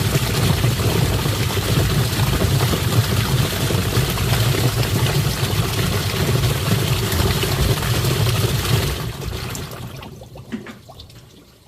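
Twin-tub washing machine's wash tub running, its motor humming under churning, sloshing water. The sound fades and dies away over the last few seconds as the tub winds down.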